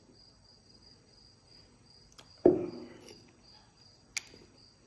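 Crickets chirping steadily in the background, a high, evenly pulsing trill. About halfway through comes a short, loud vocal sound, and near the end a single sharp click.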